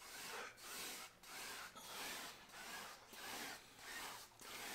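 A wide flat brush swishing back and forth across a canvas wet with oil paint, in light blending strokes. The soft brushing hiss comes a little under twice a second, evenly spaced.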